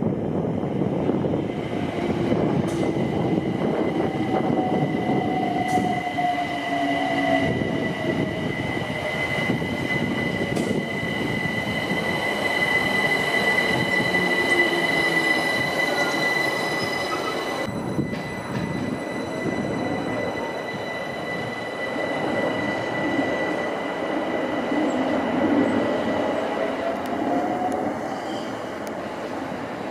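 London Overground Class 378 electric multiple unit running into a station and slowing past, with a steady high-pitched squeal over the running noise and its motor whine falling in pitch. After a sudden change about 18 seconds in, another electric train is heard, its whine rising in pitch.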